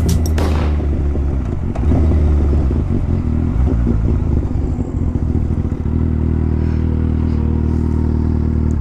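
Kawasaki Z800's inline-four engine running at low revs as the motorcycle rolls slowly after a top-speed run. Its note is uneven at first and settles into a steady, even hum from about six seconds in.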